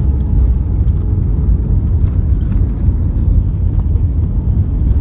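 Steady low rumble inside an Airbus A320 cabin as the airliner rolls along the ground after landing: wheels on the pavement and engine noise.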